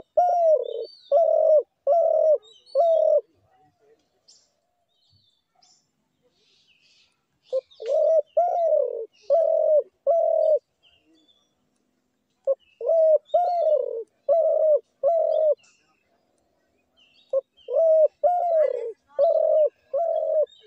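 Dove cooing: four phrases, each of five or six low, arched coo notes, repeated about every five seconds. Faint chirps of other birds are heard in the gaps.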